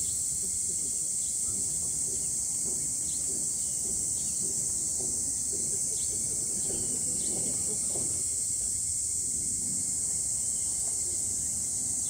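Steady, high-pitched insect drone, with a few short chirps over a faint low background rumble.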